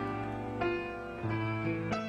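Solo piano playing a slow introduction, with four notes or chords struck about two-thirds of a second apart, each ringing on as it fades.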